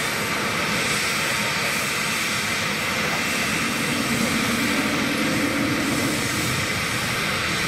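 Turbofan engines of two small business jets taxiing at low power, a steady jet whine over rushing noise. The nearer one is a Cessna Citation CJ2+ with twin Williams FJ44-3A turbofans.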